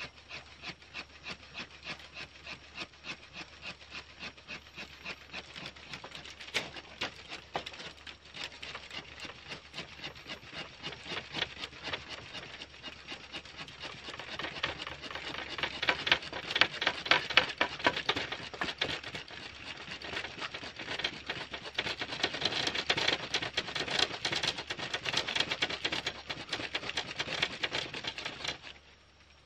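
Hardwood fire-plow stick scraping rapidly back and forth in the groove of a wooden fireboard: friction fire-lighting, with smoke already rising, worked faster to build up an ember. The strokes speed up and grow louder about halfway through, then stop suddenly near the end.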